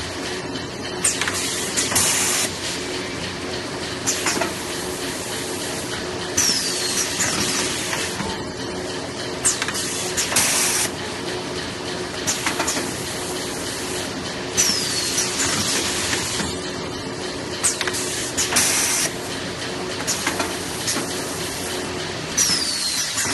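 Semi-automatic kitchen towel roll packing machine running through repeated packing cycles, about one every eight seconds. Each cycle brings a short falling whistle, clicks and a loud burst of hiss, over a steady hum.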